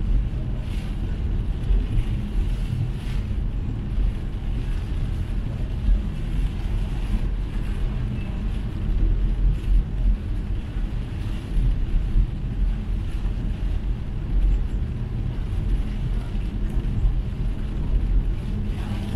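Steady low rumble of a car driving in heavy rain, heard from inside the cabin: tyre and road noise on wet pavement, with a hiss of rain on the car.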